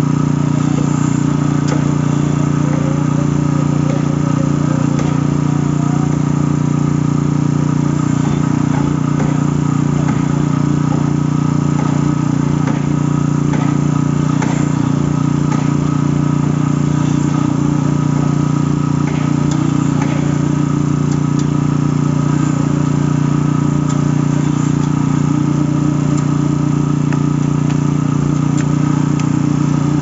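Steady engine drone of concrete-pouring machinery running without a break, with a few light scrapes and knocks of hoes working wet concrete.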